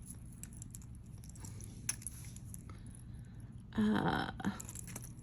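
Faint clicks and light handling noises of small jewelry pieces being picked up and moved. There is a sharper tick a little before halfway and a brief murmured sound from the person about four seconds in.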